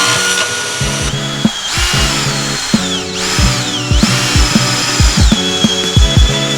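Background music with a kick-drum beat and bass notes; a high whine rises and falls over it several times.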